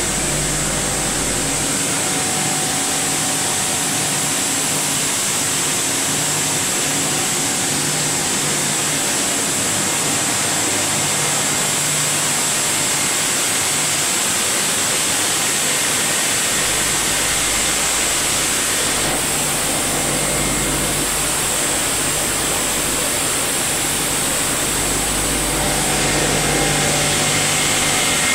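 Rice mill machinery running: a steady, loud mechanical drone and hiss from motors, blowers and fans, with a low hum. A deep rumble drops away about two seconds in and returns a little past halfway.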